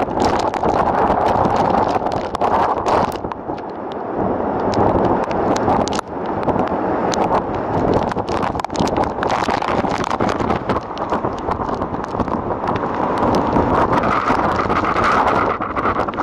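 Tropical cyclone wind roaring over the boat and buffeting the microphone, with rain. It gusts with a short lull a few seconds in, and many sharp ticks run through it.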